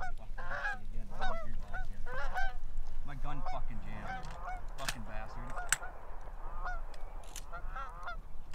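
Canada geese honking and clucking, many short calls overlapping, thinning out in the second half.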